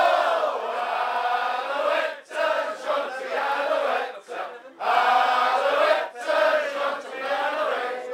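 A crowd of men singing together in a chant-like sing-song, one man's voice leading, in sung phrases broken by short pauses.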